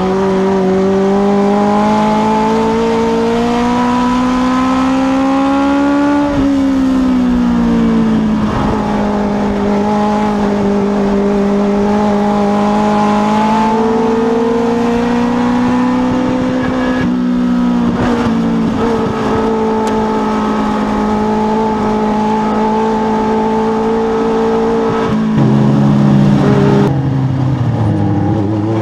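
Legends race car's Yamaha motorcycle engine heard from inside the cockpit at racing speed. Its pitch climbs for about six seconds, dips, then holds fairly steady with small rises and falls. About 25 s in it drops to a lower note, and it falls away near the end as the car slows.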